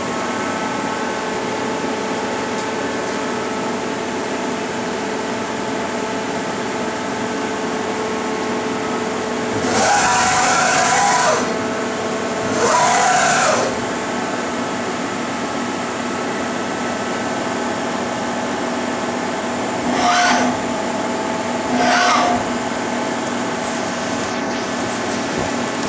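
1997 Bridgeport Powerpath 15 CNC lathe running with a steady hum of several held tones. Four short, louder hissing whirs break in: two close together about ten and twelve seconds in, and two shorter ones about twenty and twenty-two seconds in.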